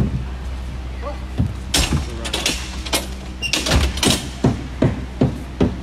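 Ice hockey play: a run of sharp clacks and knocks of sticks, puck and skates on the ice, several a second after the first second or so, over a steady low hum.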